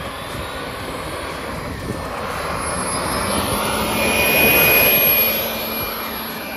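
Small JetCat model turboprop engine on an RC Super Tucano running at takeoff power as the plane accelerates down the runway. A high turbine whine climbs in pitch over the propeller noise. It grows loudest as the plane passes close, about four to five seconds in, then eases off.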